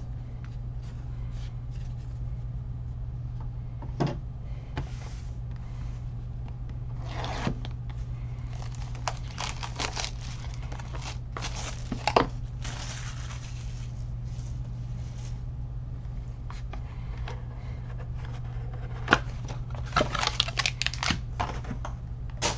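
Baseball cards and their plastic wrappers and sleeves being handled on a table: scattered taps and clicks with short stretches of scraping and crinkling, busiest about a third of the way in and again near the end. A steady low hum sits underneath.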